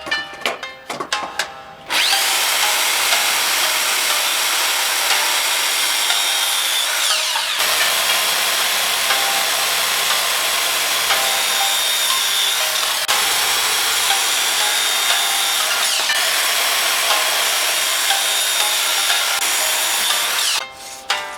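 Woodworking power tool running and cutting wood, a steady noisy whir with a constant high whine, briefly dipping a few times. Short bits of music at the start and at the end.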